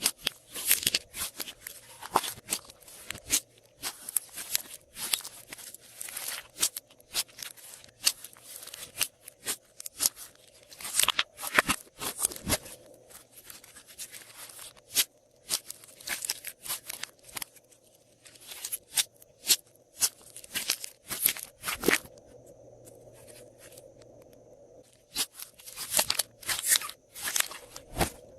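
Glossy slime being worked and squished by hand, giving quick sticky crackles and pops in clusters, with a quieter spell about three-quarters of the way through.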